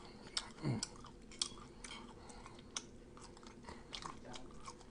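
A person chewing food close to the microphone: scattered wet mouth clicks and smacks, with a brief falling hum about two-thirds of a second in.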